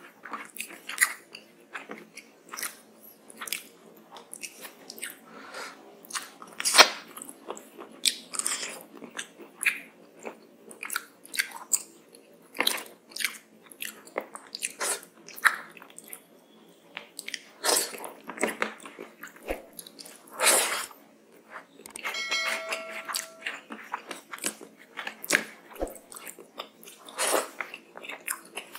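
Close-miked eating: fingers squishing rice and fish curry together, with irregular wet clicks, chewing and lip smacks. A brief pitched hum about three-quarters of the way in.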